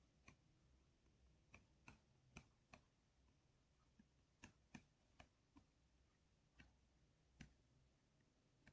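Near silence broken by about a dozen faint, irregularly spaced clicks of a stylus tapping on a tablet as handwriting is written.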